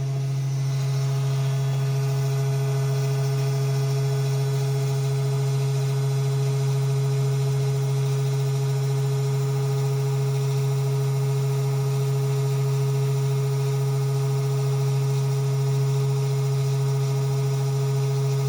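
Small desktop CNC engraving machine running, its 12-volt spindle motor and axis motors giving a steady, even hum as a V-groove bit cuts a shallow engraving.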